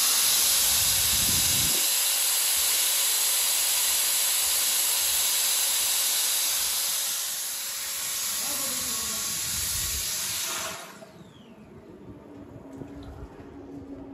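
Water running hard, a loud steady hiss that cuts off suddenly about eleven seconds in. From about eight seconds in, the motor of a DYK 13 mm electric drill is heard beneath it, falling in pitch as it goes into the water, then running submerged as a quieter low hum.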